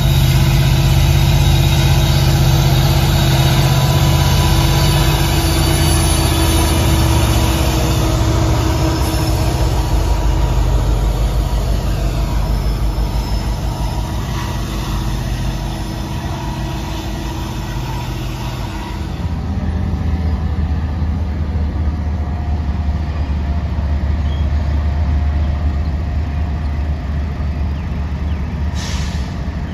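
Diesel freight locomotive engine running steadily. About 19 seconds in, the engine tone gives way to a lower, even rumble.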